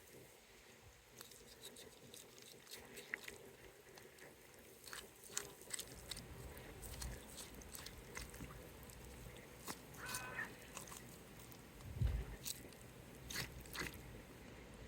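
Faint, wet cutting sounds of a knife taking the breast off a raw chicken carcass along the backbone: scattered small clicks and squelches, with a dull thump about twelve seconds in.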